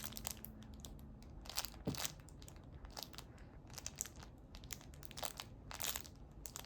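A four-month-old baby gumming and munching a teething biscuit: faint, irregular crunching with small mouth clicks.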